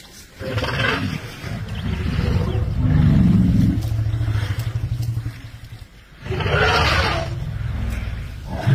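Elephant cow standing over her newborn calf, making low rumbling roars, with two louder, harsher calls about half a second and six and a half seconds in.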